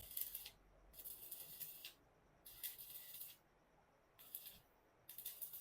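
Loose rattling in five short shaken bursts, each under a second long, with short pauses between.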